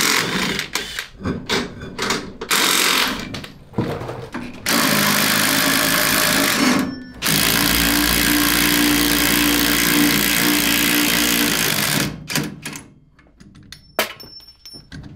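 Cordless impact driver hammering on rear hub and axle hardware of a go-kart drag rail during an axle removal: several short bursts, then two long runs of about two and five seconds, followed by a few light knocks.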